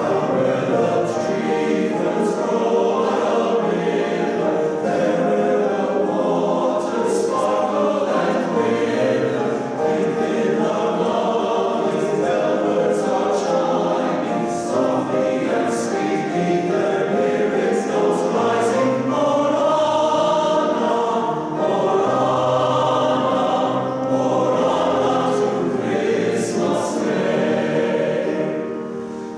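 Men's chorus singing a Christmas carol in several-part harmony, with a short dip between phrases near the end.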